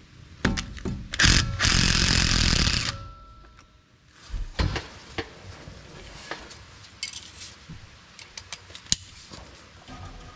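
A cordless impact wrench runs in two short bursts and then a longer run of about a second and a half, spinning out the loosened bolts on the driveshaft's rear ball-and-trunnion joint. After it come scattered metallic clicks and knocks from a hand wrench working the bolts.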